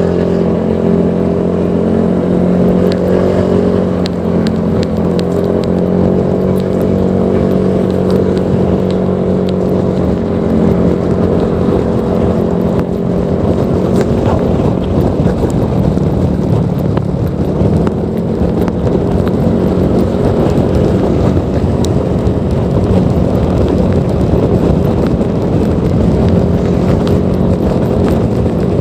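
Honda PCX 160 scooter's single-cylinder engine running through an aftermarket Proliner Neo Silent exhaust, steady, with small rises and dips in pitch.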